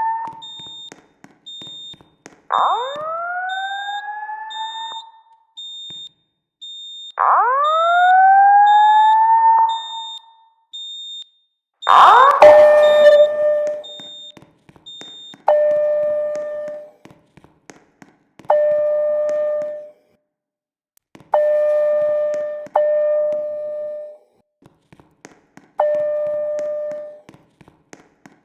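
School fire alarm's evacuation speakers sounding the whoop tone: slow rising sweeps, each about two and a half seconds long, with a faint high beeping about twice a second behind them. About twelve seconds in, after a loud click, the signal switches to a repeating steady-pitched tone: notes of about a second and a half that fade, coming every three seconds or so.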